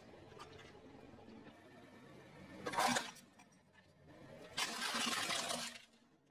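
Car tyre crushing a hard plastic toy: a short crunch about three seconds in, then a longer crunch of plastic cracking and breaking apart near five seconds.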